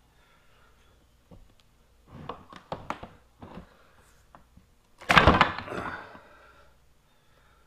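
Cast-metal oil cooler housing from a Ford 6.0 Powerstroke being taken apart by hand: scattered clicks and clinks of bolts and loose parts, then a loud clattering thunk about five seconds in as the heavy housing is turned over in a plastic drain pan.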